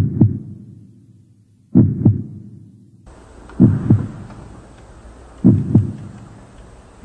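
Heartbeat sound effect: slow paired low thumps, lub-dub, about one pair every two seconds, four to five times.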